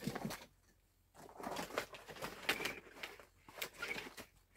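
Irregular rustling and scraping of a bare-root fruit tree's roots and twigs against a plastic pot and clothing as the tree is lowered into the pot, starting about a second in.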